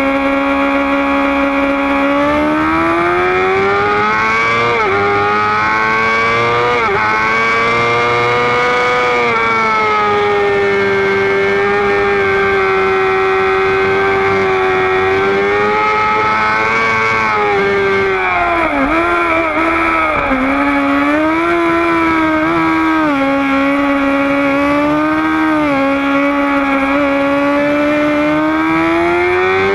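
Sport motorcycle engine at high revs, recorded on board: the pitch climbs through quick upshifts over the first few seconds, holds steady at speed for about ten seconds, drops and wavers through downshifts about eighteen seconds in, then climbs hard again near the end.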